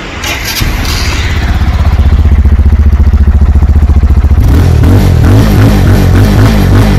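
The RKS TNT 202's air-cooled single-cylinder engine starting up and settling into a steady, evenly pulsing idle. About four and a half seconds in, its sound turns uneven, rising and falling in a repeating pattern.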